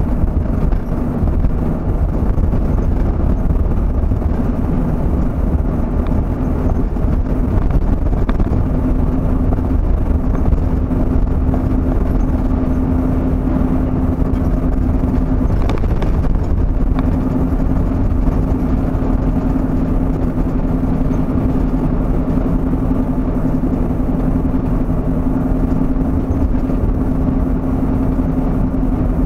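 Road and engine noise of a moving vehicle heard from inside the cabin: a steady low drone with a constant hum, which breaks off briefly about halfway through and then resumes.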